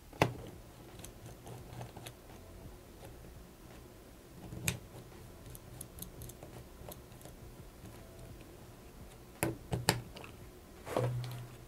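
Small clicks and ticks of a hex driver turning screws into a metal bipod clamp, with a few sharper metal clacks: one right at the start, one about halfway, and a pair about two-thirds of the way in.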